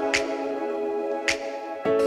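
Background music: soft sustained chords with a light percussive hit about once a second.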